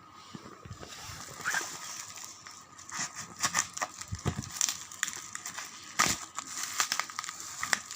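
Packaging being handled and opened during an unboxing: irregular crinkling and crackling with sharp clicks, starting about a second in.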